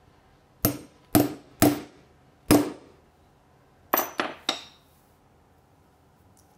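Four sharp hammer blows on a metal snap-setting punch, driving a snap fastener into jute burlap on a hard surface. These are followed by three quicker, lighter metallic clinks.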